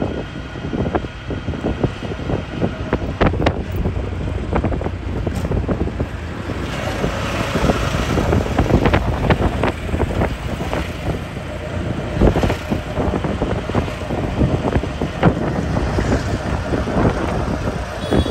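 Wind buffeting the microphone: a loud, uneven low rumble with irregular gusts.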